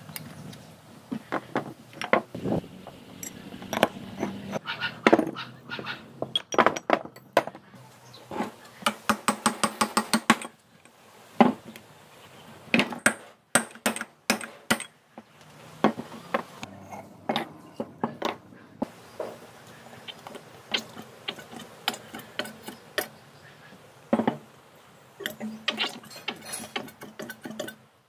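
Metal hand tools and parts handled during motorcycle restoration work: irregular clinks, taps and knocks. About nine seconds in there is a fast, even run of clicks lasting a second or two.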